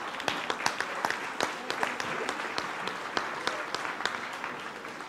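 Audience applauding: many hands clapping together, slowly thinning out and getting quieter.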